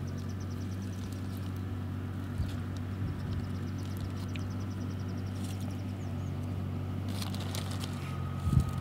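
An engine idling with a steady low hum, and a faint rapid high-pitched ticking, about ten ticks a second, that comes twice for a couple of seconds each time.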